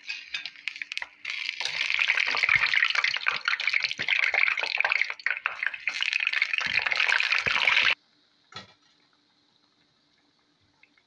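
Hot fried chana-dal bhallas tipped from a wire strainer into a bowl of water: a run of splashing and crackling sizzle that cuts off sharply about eight seconds in.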